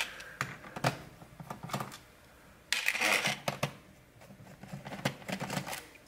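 Small clicks and ticks of a screwdriver turning screws out of a laptop's plastic bottom cover, with a short rasping scrape about three seconds in.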